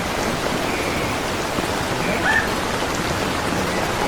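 Steady rain falling: an even, dense hiss of many drops. A brief higher-pitched sound stands out about two seconds in.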